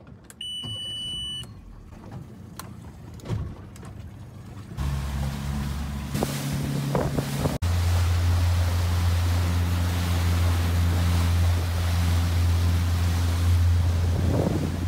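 Motorboat engine: a short beep as the ignition key is turned, then the engine starts about five seconds in and runs with a steady low drone, with wind and water noise over it.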